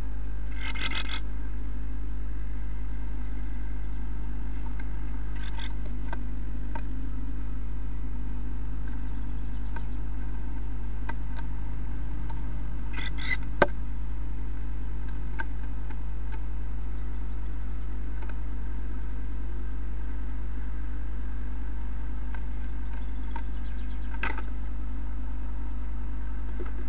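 Steady electrical hum from a nest-box camera's microphone. Over it come a few short calls and scratchy taps from a small bird moving in and around the nest box: near the start, twice in the middle and near the end, with one sharp knock about halfway through.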